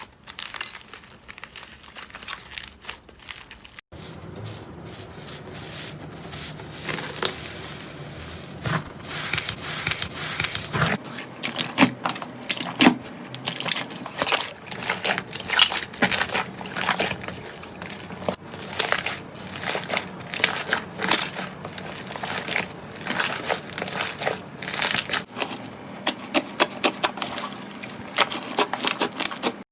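Slime being squeezed, pressed and stretched by hand, giving crackling, crinkly pops and sticky clicks. It is soft at first, then after a short break a new stretch of play starts, with thick, fast popping and clicking from about seven seconds in.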